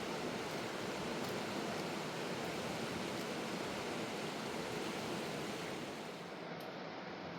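A fast-flowing mountain river rushing steadily, a continuous noise of water that eases slightly near the end.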